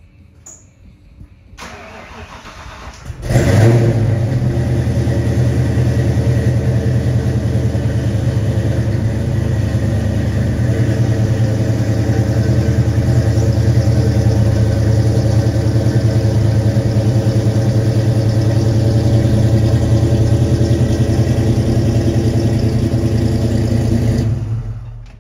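2017 Corvette Z06's supercharged 6.2-litre LT4 V8 cold-starting in track mode through a Corsa double helix X-pipe exhaust. It cranks briefly, catches loudly about three seconds in, and then runs at a steady idle until it stops near the end.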